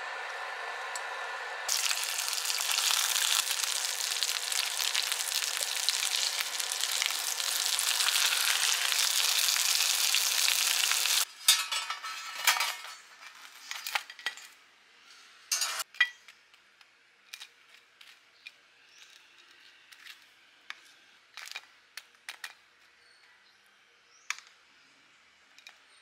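Eggs frying in hot oil in a small pan, sizzling loudly; the sizzle grows louder about two seconds in and cuts off abruptly about halfway through. After it come scattered light clinks and taps.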